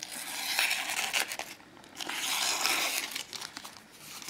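Crinkling and rustling of paper and clear plastic wrapping as a knife is handled, in two stretches of about a second and a half each with a quieter gap between them.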